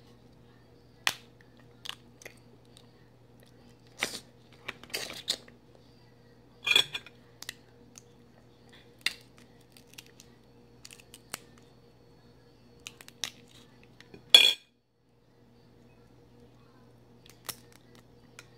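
Cooked Dungeness crab-leg shell being cracked and peeled apart by hand: a dozen or so sharp, separate cracks and clicks at uneven intervals, the loudest about 7 seconds in and again about 14 seconds in. A steady low electrical hum runs underneath.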